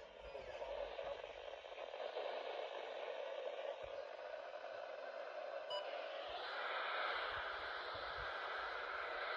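Steady radio static hiss from a receiver between alert broadcasts. About six seconds in, a brief click is heard and the hiss shifts to a higher, slightly louder tone.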